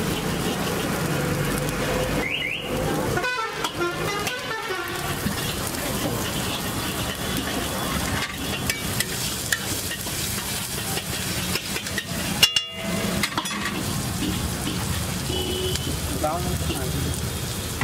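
Chopped onion, tomato and coriander sizzling in oil on a hot flat iron griddle, over street noise with traffic and horn toots. A single sharp knock about two-thirds of the way in.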